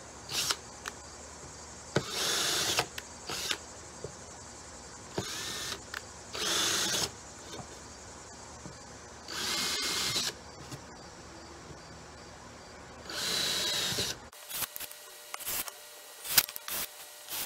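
Cordless drill with a 7/32-inch bit boring pilot holes through half-inch MDF in short bursts of about a second each, six in all, with light clicks and taps between the holes.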